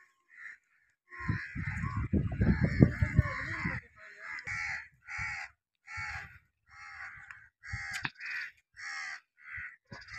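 A crow cawing over and over, short calls about one and a half a second. About a second in, a louder low noise lasts for about two and a half seconds.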